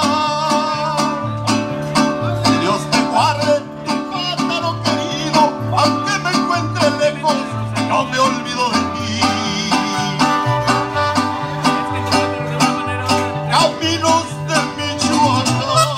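Live band, mariachi-style, playing an instrumental passage with no singing: strummed and plucked strings over a bass line that bounces between notes about twice a second, and bowed strings carrying a wavering melody.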